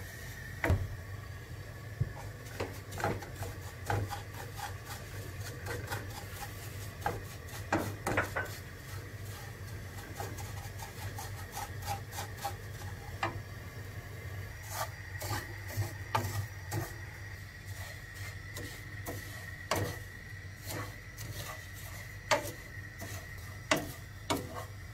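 Wooden spoon stirring and scraping dry shredded kadayıf pastry as it toasts in a frying pan: irregular rustling scrapes with occasional knocks of wood on the pan. A faint steady high tone runs behind it.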